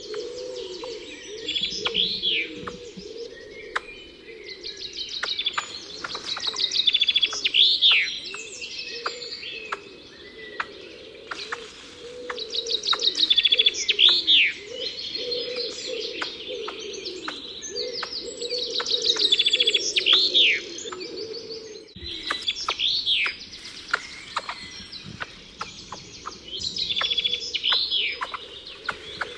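Songbird singing a repeated phrase about every six seconds: a quick run of bright notes ending in a falling swoop, with other bird chirps in between.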